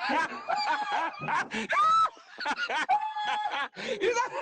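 A man laughing hard in a string of short, high-pitched whooping bursts.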